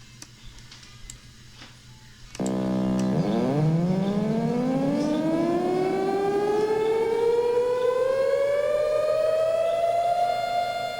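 Synthesized tornado siren patch made in FL Studio, played back with cathedral reverb. After about two seconds of quiet with a few faint clicks, a brief rapid pulsing gives way to a siren tone that winds up slowly in pitch and levels off near the end.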